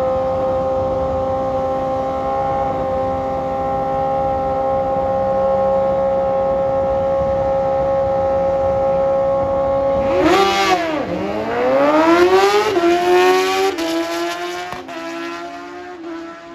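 Sport motorcycle engines held at a steady high rev on the drag strip start line. About ten seconds in they launch: the pitch dips, then climbs in several rising sweeps broken by drops as they shift up through the gears, and the sound fades as the bikes run away down the track.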